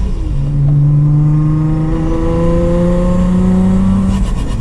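Turbocharged Infiniti G35's V6 engine accelerating. Its pitch drops with a gear change just in, climbs steadily for about four seconds, then drops again near the end at the next shift.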